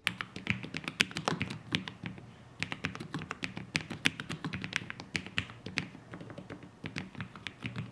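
Typing on a Lofree Flow low-profile mechanical keyboard with an aluminium case: a quick, uneven run of many soft keystroke clicks, with a creamy, gentle sound.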